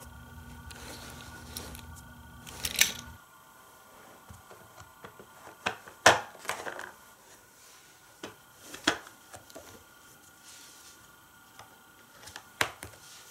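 Scattered clicks and knocks of plastic Hot Wheels track pieces and playset parts being handled and pressed together on carpet. A low steady hum runs under the first three seconds and then stops.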